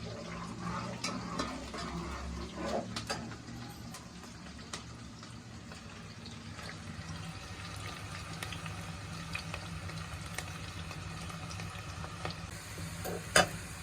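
Sliced onions frying in hot oil in a karahi, a steady sizzle as they turn golden brown. There are a few light clicks, and one sharp knock comes near the end.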